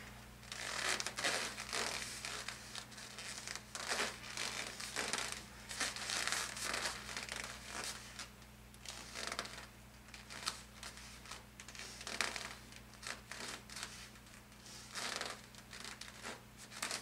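Soft rustling and swishing in irregular bursts, roughly one a second, from a person swinging her arms and twisting through alternating lunges on an exercise mat.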